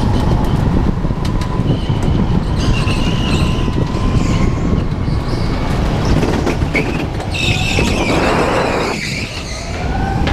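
Go-kart running at speed, recorded on board with heavy rumble on the microphone and a faint steady motor whine. Tyres squeal through the corners, most strongly about eight seconds in.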